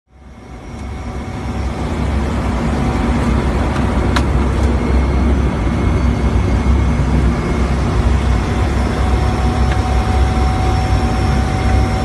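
Steady drone of an ATR-72's twin turboprop engines and propellers heard inside the cockpit on final approach, fading in over the first two seconds. A single click comes about four seconds in.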